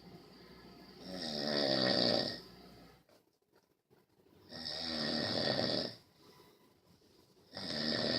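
Snoring: three long, rattling snores, one about every three seconds, with quieter gaps between; the last is still going at the end.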